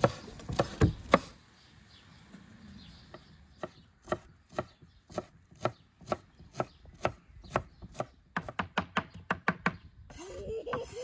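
Large kitchen knife chopping fresh herbs on a wooden cutting board: a few chops at the start, a short pause, then steady chopping about two strokes a second that quickens into rapid chops near the end.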